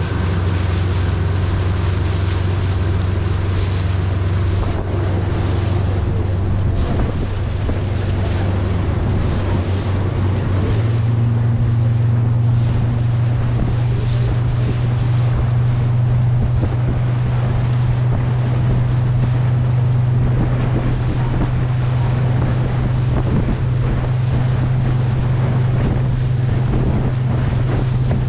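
A boat's engine running steadily, its note stepping up to a higher, steady pitch about eleven seconds in. Wind buffets the microphone and water rushes past.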